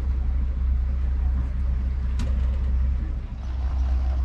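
Boat engine running steadily, a low rumble, with a single sharp click about two seconds in.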